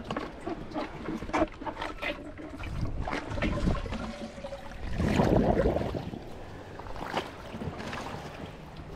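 Water splashing and sloshing with scattered small knocks and clicks; a louder surge of splashing about five seconds in.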